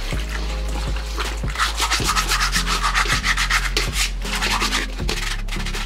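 Scouring sponge scrubbing a rusty steel hammer in soapy water, in rapid back-and-forth rubbing strokes that scrape grime and rust off the metal.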